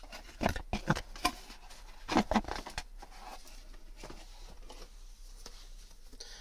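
Cardboard product box being handled and a hard-shell zippered carrying case slid out of it: a few short rustles and scrapes in the first three seconds, then quiet room tone.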